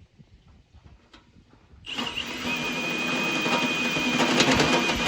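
Near silence with a couple of faint clicks, then, about two seconds in, a battery-powered tool's motor starts suddenly and runs steadily with a high whine.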